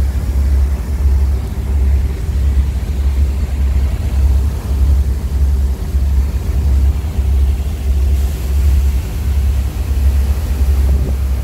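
Large diesel machinery in a ship's engine room running steadily: a deep throb pulsing in a regular beat, about one and a half times a second, under a steady hum.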